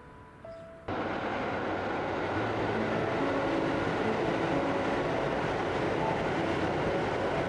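A loud, steady rushing noise cuts in suddenly about a second in and holds, with soft piano music continuing beneath it.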